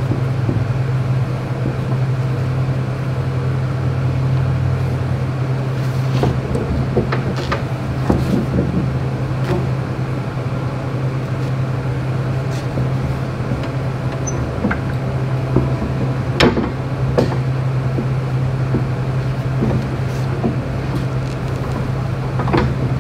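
A steady low hum, with scattered light knocks and clanks as a solid stainless steel round bar and its bar clamp are shifted and pressed against a wooden seat.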